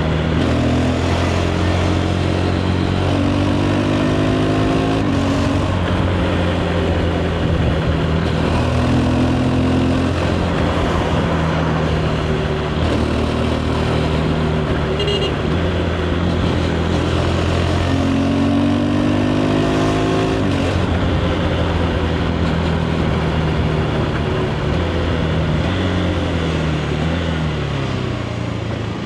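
KTM 390 Adventure's single-cylinder engine through its stock exhaust under way, accelerating in three bouts where the revs climb in short steps with quickshifted upshifts, and holding steady revs in between. Near the end the revs dip and rise briefly a few times.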